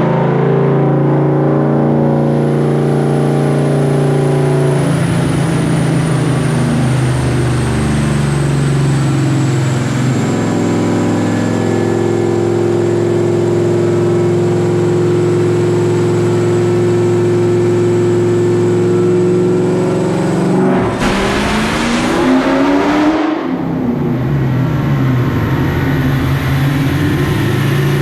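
Whipple-supercharged 2003 Ford SVT Cobra 4.6-litre V8 running on a dyno, held at steady engine speeds that step down a couple of times. About 21 seconds in, a rough two-second stretch of misfire and backfire, after which the engine drops back to a lower, steady speed.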